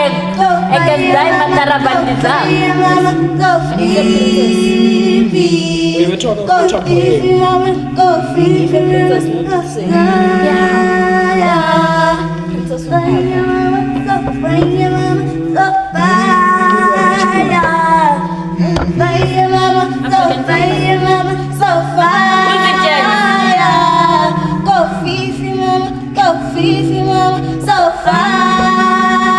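Vocal group singing a cappella in close harmony, with held chords that change every second or two and no clear words.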